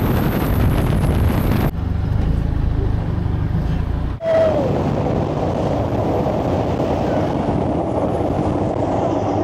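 Turbo diesel longtail boat engine running at speed, with wind and water rushing past. The sound changes abruptly twice, about two and four seconds in.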